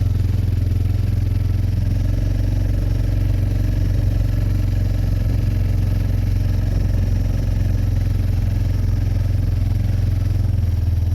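Four-wheeler (ATV) engine running at a steady speed while riding, a loud even low hum with no revving.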